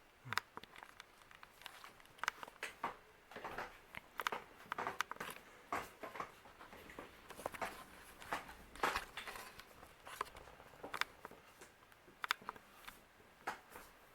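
Irregular crackling and rustling clicks, several a second and uneven in strength, with no steady hum under them.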